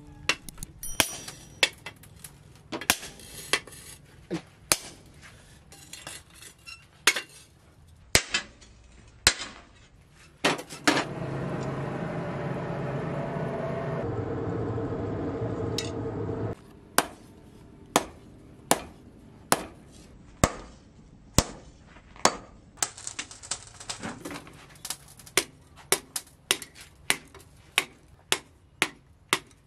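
Hand hammer striking a disc-plough steel blade on a steel post anvil, in spaced sharp ringing blows. About ten seconds in, a steady rushing noise lasts some six seconds while the blade heats in the charcoal forge, then stops suddenly. Hammering on the red-hot blade resumes and quickens to about two blows a second near the end.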